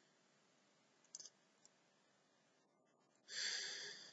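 A few faint computer mouse clicks about a second in, then a louder short breath near the end, against near silence.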